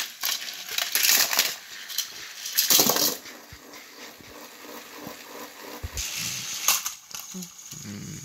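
Rustling and clattering of plastic toy trains and track pieces being handled, in a few short bursts.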